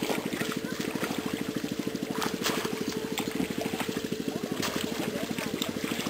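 Small engine running steadily with a rapid, even throb, with a few short splashes as a stick is jabbed into shallow muddy water.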